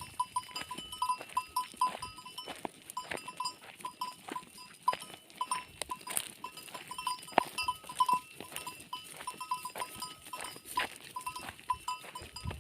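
Small bells on a herd of goats clinking irregularly as the goats move, a quick, uneven string of short rings mixed with scattered sharp knocks.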